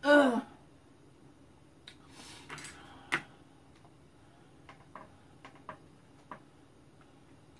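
A short, loud cough at the very start, then chopsticks clicking and tapping against a frying pan while stirring noodles: one sharper knock about three seconds in and a handful of lighter taps a couple of seconds later.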